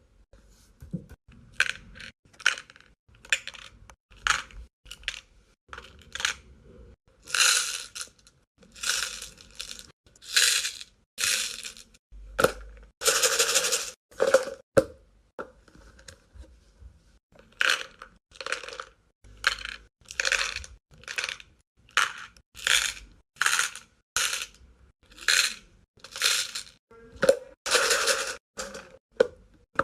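Small plastic beads poured and dropped into the compartments of a clear plastic bead organizer box. They make a run of separate clattering rattles, about one or two a second, a few lasting about a second.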